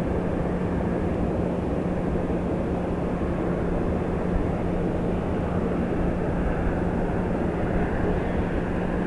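Steady drone of jet aircraft noise at an airport: an even rush with a constant low hum underneath, unchanging throughout.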